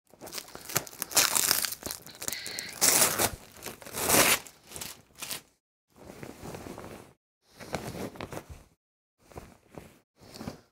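Protective fabric wrap rustling and crinkling as it is pulled off a portable vocal booth by hand. The loudest swishes come in the first four seconds or so, then shorter, softer rustles with short pauses between them.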